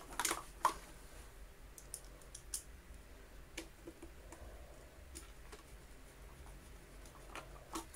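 Scattered light clicks and taps of a screw and plastic parts being handled and fitted into a Dyson DC50 vacuum's plastic housing, the sharpest click under a second in and a small cluster around two seconds in.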